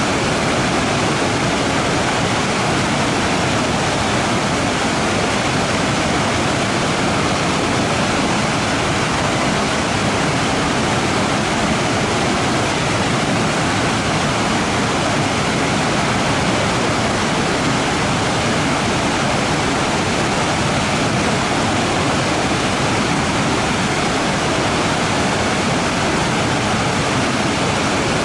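Waterfall rushing steadily, an even, unbroken wash of falling water with no changes.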